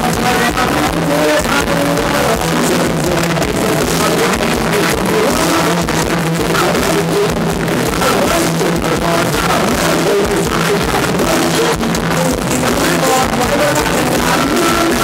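Live band playing loud amplified Thai ramwong dance music with a steady drum beat, guitar, and male vocals sung through stage microphones.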